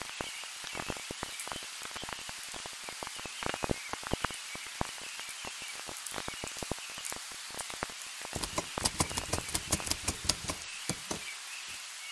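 Vinyl record surface noise from a stylus in the groove: a steady hiss with irregular crackles and pops, the pops coming thicker and louder about eight seconds in.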